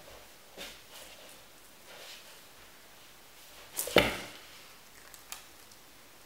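A cat scuffling on a wooden floor as it bats at and rolls with a pompom on a string, with soft rustles and one sharp thump about four seconds in as it throws itself over onto the floor.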